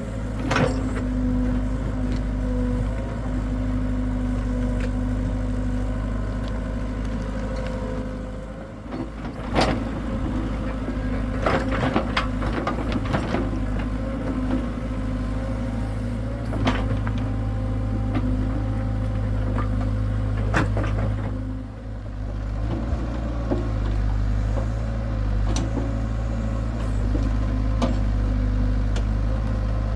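Hitachi hydraulic excavator's diesel engine running steadily, with sharp metallic knocks now and then and two brief dips in level, around a third of the way in and about two thirds of the way in.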